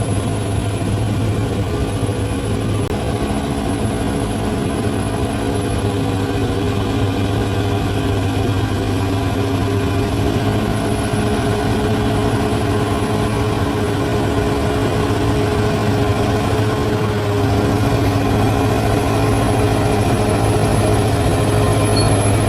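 Large bulldozer's diesel engine running steadily, a deep, continuous drone.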